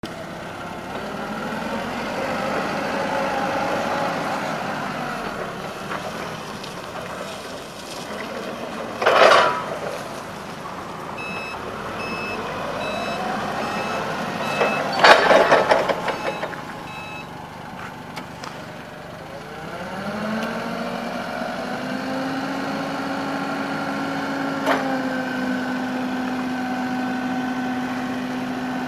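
Cat 2C5000 propane forklift's engine running as it drives, its revs rising and falling, with a backup alarm beeping about once every two-thirds of a second for several seconds midway. Two brief loud rushing noises come about nine and fifteen seconds in. Near the end the engine revs up and holds steady as the mast is raised high.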